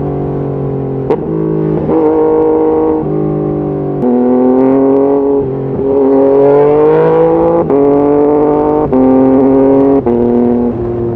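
Yamaha MT-09's inline three-cylinder engine running under load. Its note jumps to a new pitch every second or two, with a sharp pop at each change, and climbs slowly through two longer stretches in the middle.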